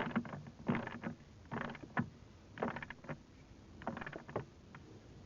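Ratchet wrench clicking in short strokes, about one burst a second, as the battery hold-down is tightened down.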